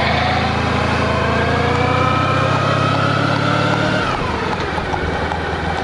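Honda Pan European ST1100's V4 engine accelerating, its note rising steadily for about four seconds, then dropping away as the throttle is closed.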